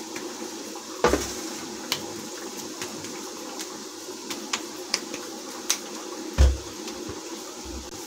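Hands working a ball of dough: a few soft knocks and clicks as it is handled and set down, the strongest about a second in and about six and a half seconds in, over a steady background hum and hiss.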